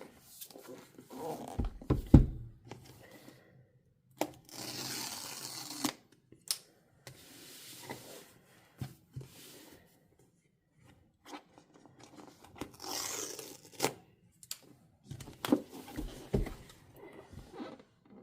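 Packaging on an iPad Pro box being torn open: two long tearing pulls, one about four seconds in and another near thirteen seconds. Between them come knocks, taps and rustles of the box being handled, and a sharp thump about two seconds in.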